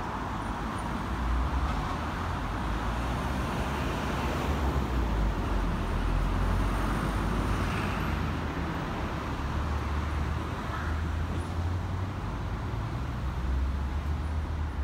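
Road traffic: motor vehicles passing steadily with a low rumble that swells and eases as they go by.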